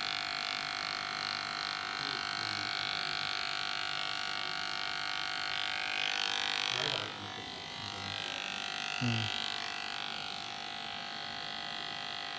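Cheap electric hair clipper running with a steady buzz while cutting hair. It drops in level about seven seconds in.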